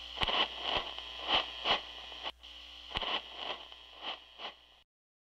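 Radio-style static with a low hum and irregular crackling pops, about two or three a second, cutting off suddenly near the end.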